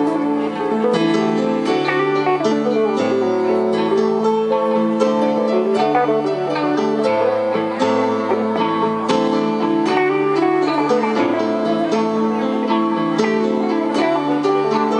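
Live instrumental jam of keyboard and electric guitars, with many quick notes over held chords and a low line that changes every second or two.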